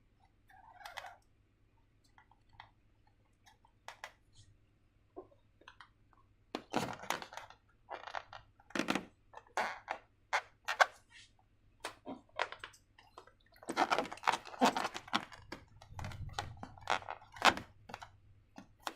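Hands working slime and rubber balloons: irregular sharp clicks, crackles and squishy smacks. They are sparse at first and grow busier about a third of the way in, then again past the middle.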